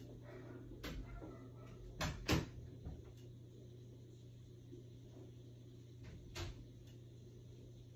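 A few short knocks and bumps over a steady low hum: a light one about a second in, the loudest two close together about two seconds in, and one more near six and a half seconds.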